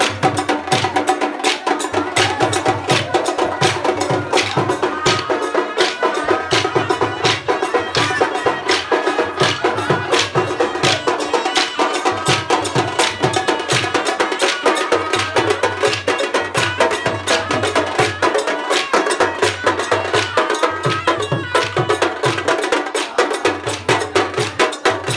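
Live drum-led folk music played for a dancing troupe: fast, steady percussion strikes with a tune held above them and a recurring low drum beat, going on without a break.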